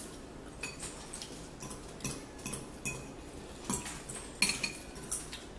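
Metal forks clinking and scraping against bowls while eating noodles: a string of separate sharp clinks, roughly one every half second.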